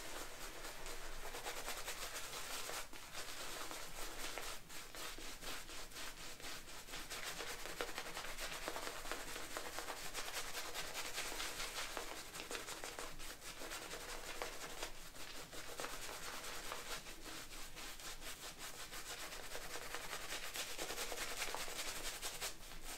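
Boar-bristle shaving brush (Semogue 610) worked against tallow shaving soap to build lather: a steady, rapid scratchy swishing of bristles.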